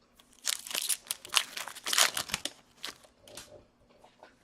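Foil wrapper of a hockey card pack crinkling and tearing as it is opened: a quick run of rustling bursts over about two seconds, then a few fainter rustles.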